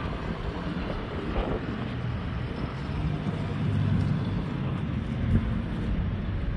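A steady low engine rumble with wind buffeting the microphone, and a single knock about five seconds in.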